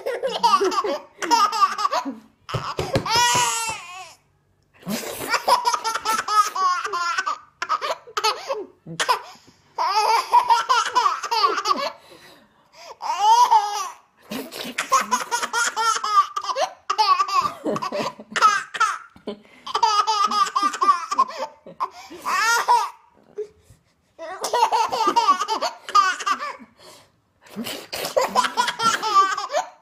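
A baby laughing in about a dozen bursts of one to three seconds each, with short pauses between.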